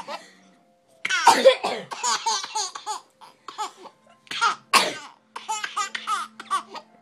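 A person sneezes twice, about a second in and again near five seconds, and each sneeze sets off a run of high-pitched laughter.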